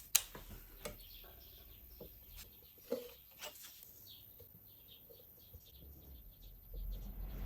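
Small birds chirping in short, rapid notes, with a few sharp knocks, the loudest near the start and about three seconds in.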